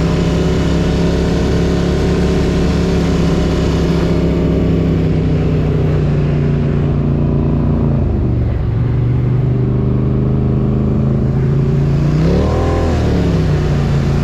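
Polaris ATV engine running at a steady pitch while riding, dropping to a lower pitch about eight seconds in, then revving up and back down once near the end.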